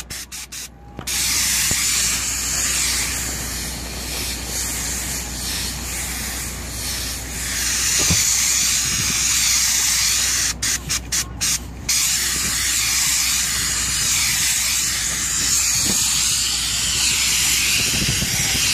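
Airless spray gun hissing steadily as it sprays elastomeric roof coating, with a low hum underneath. The spray cuts out and restarts a few times in quick succession at the very start and again about eleven seconds in.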